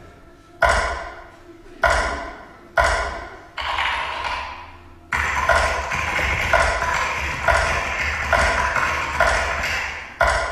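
Stage soundtrack of bright, pitched ping-like chimes, about one a second, each struck sharply and ringing away, over a low hum. From about five seconds in the chimes ring on without dying away between strikes.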